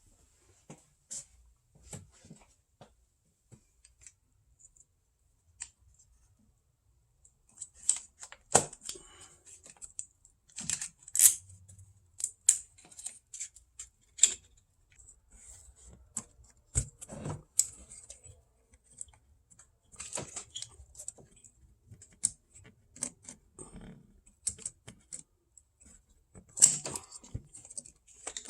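Irregular clicks, taps and clinks of hand tools and small parts being handled while disconnecting parts on top of an engine, with a few louder knocks about 8 s and 11 s in and near the end.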